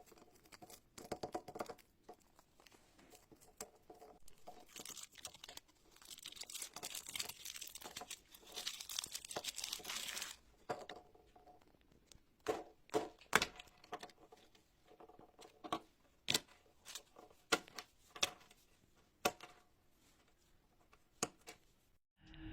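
Slime being squeezed and stretched by hand. A dense crinkly crackle runs for about five seconds mid-way, then gives way to a run of separate sharp pops and clicks.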